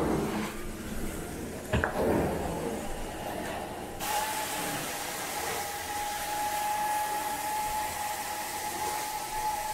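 A carpet-cleaning extraction machine's vacuum comes on suddenly about four seconds in and runs with a steady rushing hiss and a thin, steady whine. A sharp knock sounds shortly before it starts.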